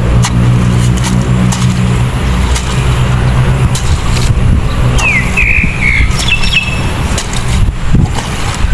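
A loud, steady low rumble, with a low engine-like hum in the first few seconds, and scattered short knocks from a long-handled hoe working wet mud. A bird chirps a few times, falling in pitch, around the middle.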